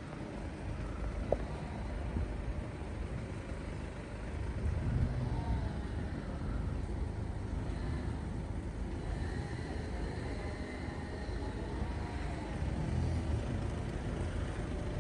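Road traffic: cars driving past, the low rumble swelling about five seconds in and again near the end.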